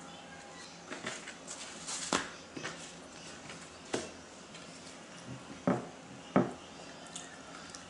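Close-up eating sounds from a mukbang: chewing and mouth noises as a bite of tortilla is eaten, with scattered small clicks. Near the end come two sharp knocks about a second apart, the loudest sounds, as a metal spoon and hand work at the plate.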